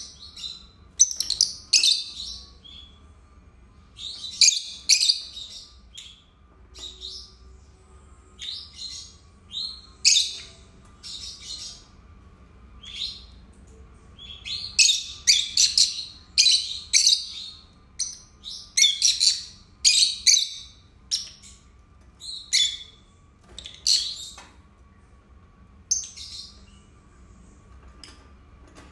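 Two peach-faced lovebirds chirping in quick, high-pitched bursts, in irregular clusters with short pauses between them.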